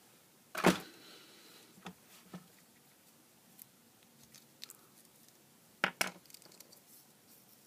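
Handling noise from taking apart a cheap soldering iron: scattered light clicks and taps of its metal barrel, element wires and plastic parts. The clearest is a sharp click about a second in, and two quick taps near six seconds as a part is set down on the wooden bench.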